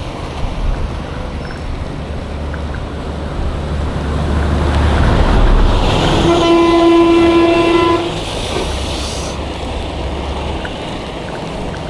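A vehicle passes close on the road, its noise swelling and fading, and sounds one long, steady horn blast of about two seconds about halfway through. Wind rumbles on the microphone underneath.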